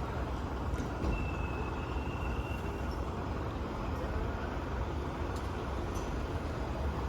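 Steady road traffic noise: the low rumble of vehicles running past, with no siren sweep standing out.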